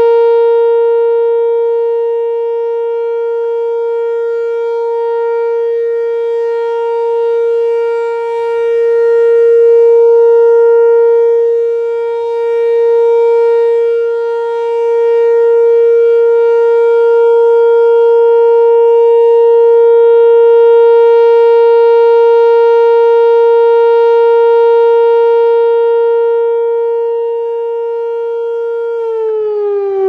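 Whelen Vortex R4 rotating outdoor warning siren sounding its steady alert tone, loud, swelling and fading as the turning horns sweep past. About a second before the end the pitch starts to fall as the siren winds down at the end of its one-minute alert.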